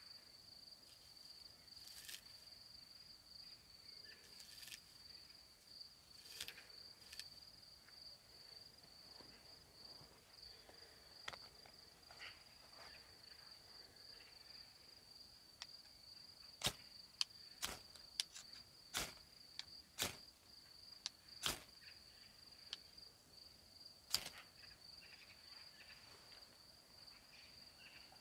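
Crickets chirring steadily with one continuous high-pitched trill. Scattered sharp cracks or snaps break through it, a few early on and a quick cluster about two thirds of the way through.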